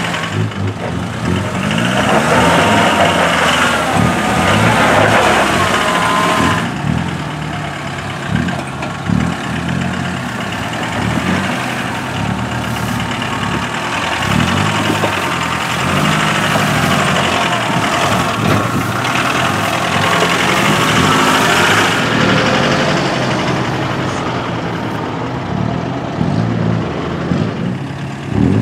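Troller T4's 3.0 turbodiesel engine running at low revs as the jeep crawls in first gear over a rough, rocky trail, its note shifting up and down with the throttle. A second off-road vehicle's engine runs close behind.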